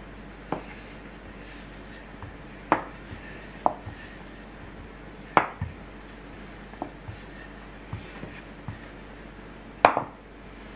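Wooden rolling pin rolling out bagel dough on a wooden board, with irregular sharp knocks as the pin strikes the board. The loudest knock comes near the end, as the pin is set down.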